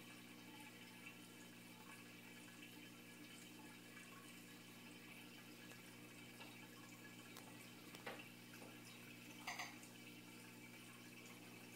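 Faint aquarium pump hum, steady and low-pitched, with light trickling of water. Two soft clicks, the louder one about nine and a half seconds in.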